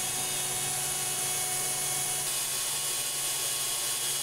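Cooling fan of an AN/GRC-106 transmitter's amplifier running with a steady whir and hum. A faint higher tone drops out about two seconds in.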